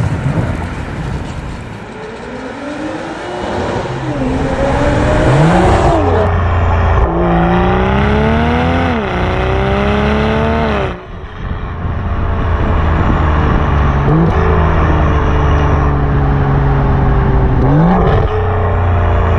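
BMW M340i's turbocharged 3.0-litre B58 straight-six through a Milltek downpipe and full sport exhaust, accelerating through the gears. The pitch climbs and drops sharply at each of about three upshifts. It then settles into a steady pull with a couple of brief rises in revs.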